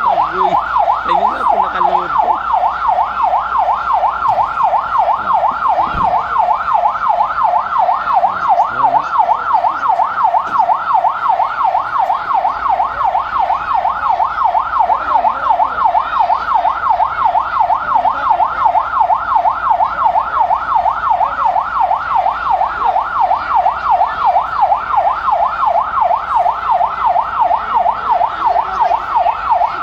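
Electronic alarm siren in a fast warble, its pitch sweeping up and down several times a second without a break, sounding the alert for an earthquake drill. A single knock comes about six seconds in.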